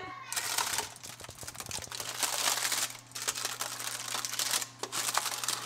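Parchment paper crinkling and rustling as hands pull it open, with many small crackles.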